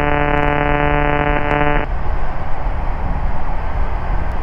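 A steady buzzing tone for about the first two seconds, then the steady drone of an Ikarus C42B microlight's engine and airflow in the cockpit, heard through the headset intercom.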